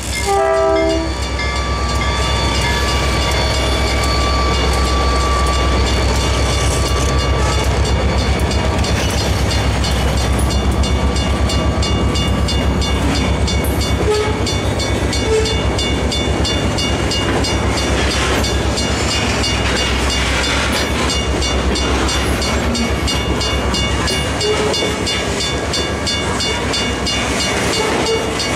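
A diesel train horn finishes its blast about a second in. Then an EMD diesel locomotive's engine drones while a freight train of covered hoppers and lumber cars rolls past, wheels clattering steadily on the rails under a thin, steady high squeal. The low engine drone eases near the end as the locomotive moves away.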